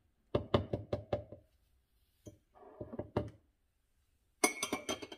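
A metal spoon tapped several times against the rim of a small blender jar, with a few more light knocks, then a ringing metallic clatter near the end as the spoon is set down.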